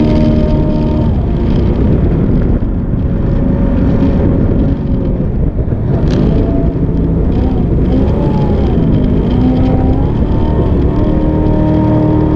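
Jet boat engine running hard at speed, its pitch dipping and climbing several times as the throttle is worked, then holding steady near the end, over a rush of water and wind.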